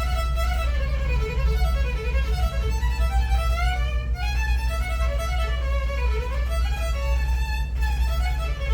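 Lively instrumental music with quick rising and falling melodic runs, over a steady low rumble.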